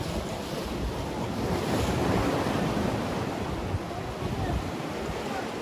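Sea waves surging and washing against the concrete blocks of a breakwater, swelling a little about two seconds in, with wind buffeting the microphone.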